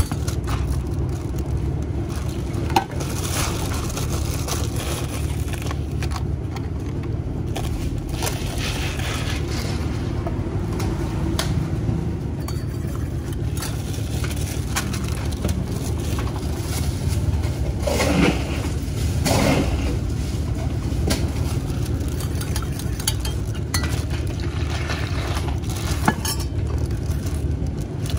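Handling noises while Thai iced tea is mixed: a spoon and metal cup clinking and scraping, and a plastic bag of ice rustling and crunching, with occasional sharp clinks. A steady low hum runs underneath.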